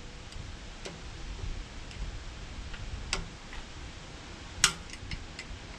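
Hand tools clicking and tapping on metal while working on a loader's boom, possibly removing an actuator's snap ring: a few sharp, widely spaced clicks, the loudest shortly before the end and followed by several small ticks, over a faint low rumble.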